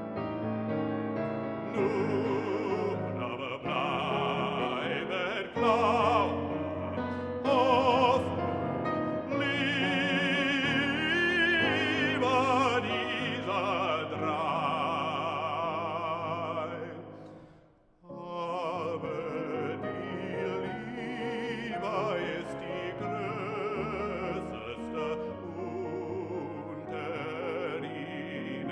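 A bass-baritone sings a classical art song with wide vibrato, accompanied on a Bösendorfer grand piano. About two-thirds of the way through, the sound dies away to a brief silence, then voice and piano begin again.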